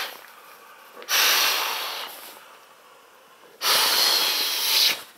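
Breath blown hard into the valve of a Sea to Summit Aeros Ultralight inflatable pillow: the tail of one blow, then two more long rushing blows of about a second and a half each, with short pauses between.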